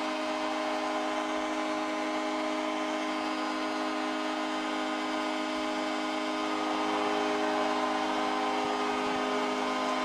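Arena horn holding one steady chord without a break over the noise of the crowd, getting a little louder after about seven seconds; the horn marks the home team's series-clinching win.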